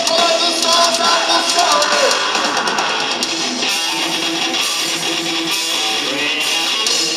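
A live rock band playing loud, led by distorted electric guitar. Drum hits are dense in the first half, and a repeating guitar riff carries the second half.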